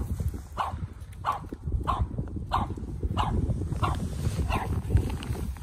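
A dog barking over and over in short, evenly spaced barks, about one and a half a second, stopping about four and a half seconds in.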